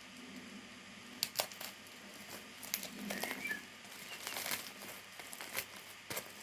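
Plastic packaging crinkling and rustling in irregular bursts as small packets of nail gems are handled and taken out of a bag.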